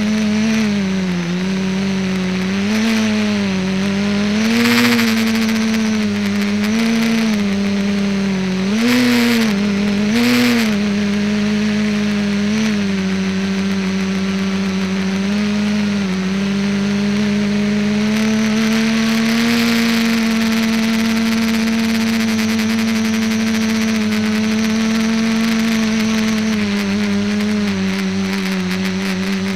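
Electric motors and propellers of a small RC model aircraft humming, heard from a camera carried on the aircraft. The pitch swells up and dips several times with the throttle, then holds nearly steady for the second half.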